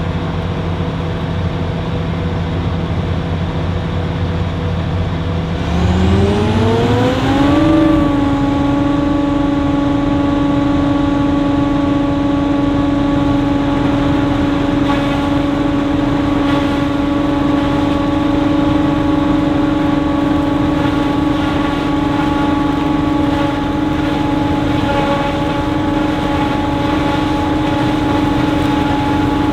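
Large farm machine's diesel engine running steadily, then revving up over about two seconds and holding a steady, higher working speed with a constant whine.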